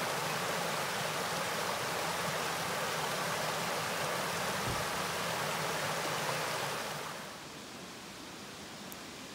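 Small mountain brook rushing over rocks in shallow cascades: a steady rush of running water. About seven seconds in it drops to a much fainter steady hiss.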